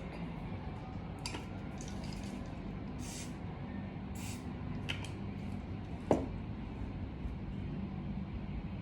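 Pistol parts being handled and cleaned: several short rubbing scrapes and one sharp click about six seconds in, over a steady low hum.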